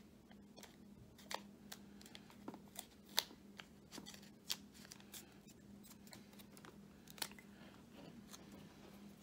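Hands handling a bundle of automotive wiring and blue masking tape: faint, irregular clicks and rustles, several a second, over a steady low hum.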